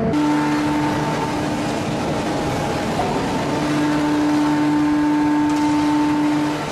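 Industrial machinery running steadily: a dense mechanical noise with a constant hum and whine. The whine grows stronger about halfway through and stops shortly before the end.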